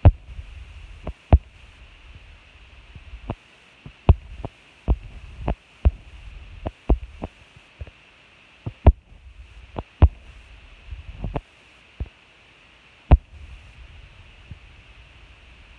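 Irregular sharp clicks and knocks, about twenty of them at uneven spacing, many with a brief low thump, over a steady faint hiss.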